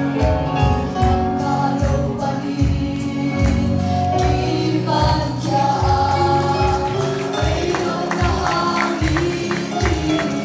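A choir of women and men singing a gospel song into microphones over a band accompaniment with a steady drum beat.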